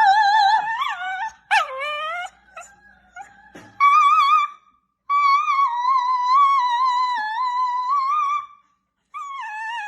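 A dog howling in a series of long, wavering notes, several in a row with short breaks between them, the longest held about three and a half seconds.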